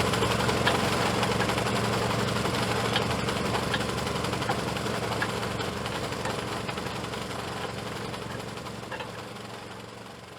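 Fishing boat's engine running steadily with a low drone and a few faint ticks, fading out gradually toward the end.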